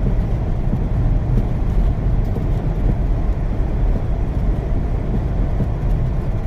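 Steady low rumble of a car driving on a snow-covered road: tyre and engine noise running evenly with no distinct events.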